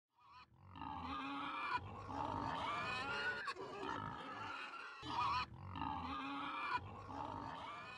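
Pigs grunting and squealing in several stretches of one to two seconds, with short breaks between.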